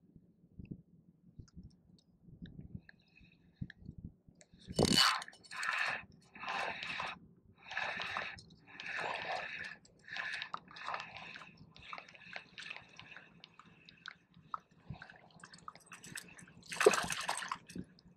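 A spinning reel being cranked in a run of short whirring pulses, about one a second, as a hooked fish is reeled in. Near the end a small trout splashes at the surface.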